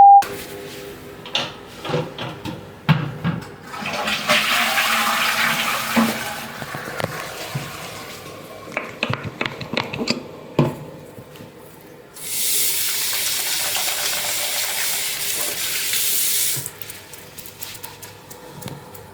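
Bathroom sounds: scattered clicks and knocks and a short stretch of running water, then a loud rush of water for about four seconds, a toilet flushing, which stops abruptly.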